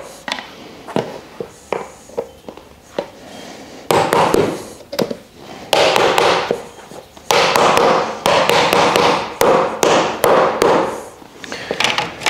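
Hammer tapping slatted wooden parts of a plant stand together: a series of sharp wooden knocks, with stretches of rapid, closely spaced knocking.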